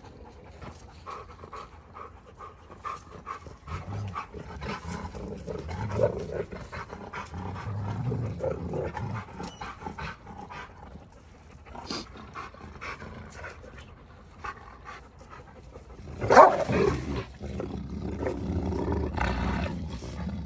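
Giant schnauzers growling in a rough scuffle: bouts of low growling from a few seconds in, a sudden loud outburst about three-quarters of the way through, then steady growling.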